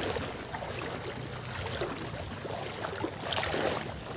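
Wind and lapping water in shallow sea water, a steady noisy rush with a briefly louder swell about three seconds in.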